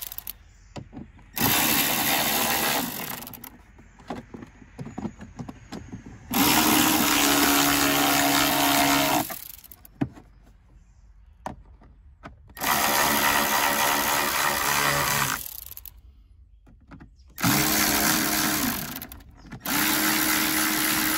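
Cordless electric ratchet driving screws into the fuse box cover. The motor runs five times, each run one and a half to three seconds long, spinning up and winding down.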